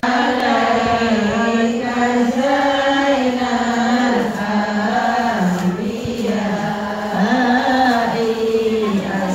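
Women chanting sholawat, an Islamic devotional chant, in a slow melodic line with long held notes.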